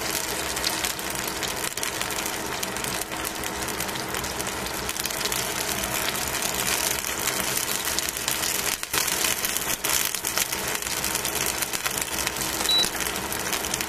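Chicken wing pieces sizzling as they fry in a stainless steel pan: a steady hiss full of fine crackles and spits, with a steady low hum underneath.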